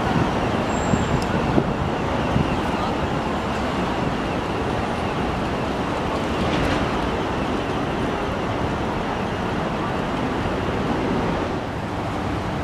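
Steady city road-traffic noise, a continuous wash of passing vehicles that eases slightly near the end.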